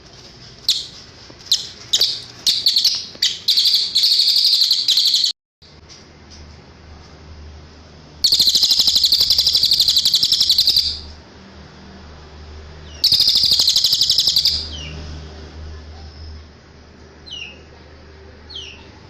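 Cililin song: sharp high chirps building into a fast trill, broken by a brief silent cut about five seconds in, then two long, rapid, rattling trills and a few faint short calls near the end.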